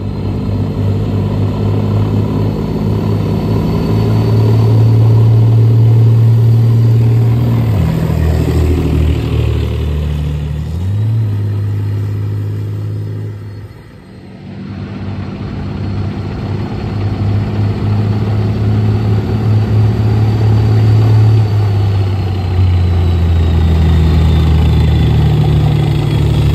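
Heavy tracked armoured vehicles' diesel engines running as they drive past, the engine note dropping and rising again about eight to eleven seconds in. The sound dips briefly about fourteen seconds in and then builds again as a CRARRV armoured recovery vehicle comes close, with a high whine near the end.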